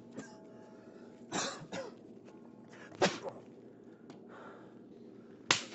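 A person coughing and clearing the throat in a few short, separate bursts.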